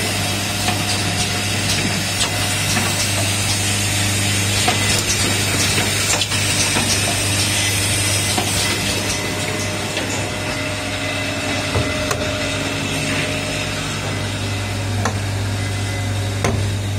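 Automated switch-part assembly machine running: a steady low hum with irregular clicks and knocks from its pneumatic cylinders and moving mechanisms.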